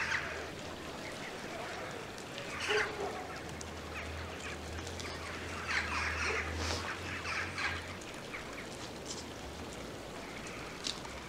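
Bird calls: a few short calls about three seconds in and a longer run of calls around six to seven seconds in, over a low steady hum that stops about eight seconds in.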